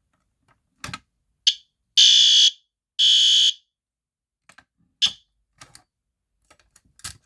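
System Sensor P2R fire alarm horn sounding after key activation of the pull station. A short high-pitched chirp comes first, then two loud half-second blasts about a second apart, then one more brief chirp. A few small clicks fall before and after.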